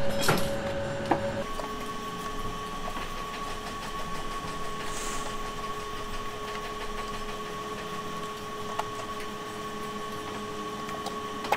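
A steady machine hum whose pitch steps up about a second and a half in and then holds, with a few light knocks from the hard plastic headlight cowl being handled near the start.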